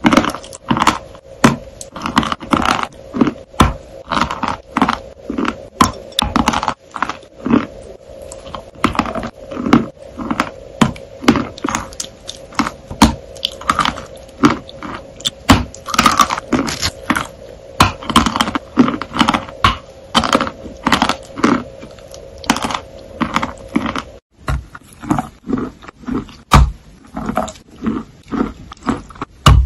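Close-miked mouth sounds of biting and chewing whipped cream topped with chocolate crumbs: wet, crunchy bites and chews at about two or three a second, over a steady hum. About 24 seconds in the hum cuts off and the crunching continues as bites into a grey chalky block.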